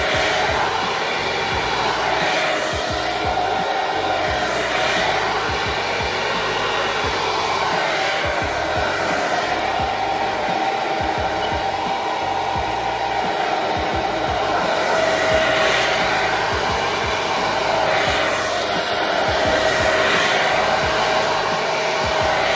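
Handheld hair dryer blowing, with a steady motor whine. The rush swells and fades as the nozzle is swept around the head.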